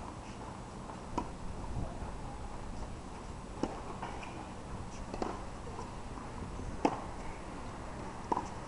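Tennis ball in a rally on a hard court: about five sharp pops of the ball being struck and bouncing, spaced roughly a second and a half apart, the loudest about two-thirds of the way through.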